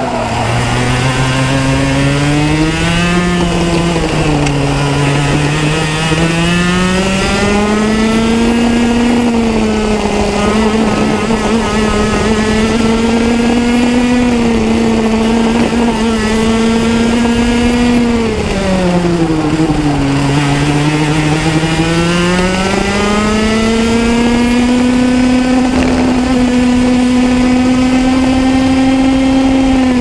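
125cc two-stroke racing kart engine heard onboard, revving hard on the straights and falling in pitch as it slows for corners. The note is low at the start, climbs and holds high through the middle, drops low again about nineteen seconds in, then climbs back and holds high near the end.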